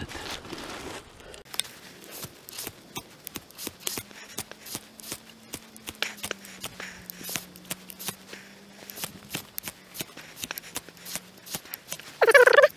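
Knife blade scraped again and again along a small, poor-quality ferrocerium rod (firesteel) to throw sparks onto wood shavings: a string of short, irregular rasping scrapes. Near the end there is a brief, louder voice-like sound.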